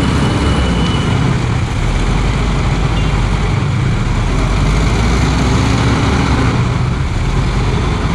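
KTM Duke 390 single-cylinder motorcycle engine running steadily at low speed through floodwater, close behind a bus whose diesel engine is running, with water churning around the wheels.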